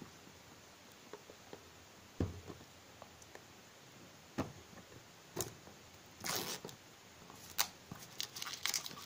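Clear plastic shrink-wrap on a boxed smartphone being peeled and torn off by hand: a few isolated sharp crackles, a longer rustle about six seconds in, and crinkling that grows busier near the end.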